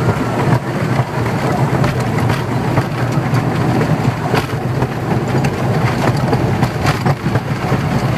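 Miniature park railway running: the open ride-on carriage rolls along the narrow track with a steady low rumble and irregular clicks of the wheels on the rails.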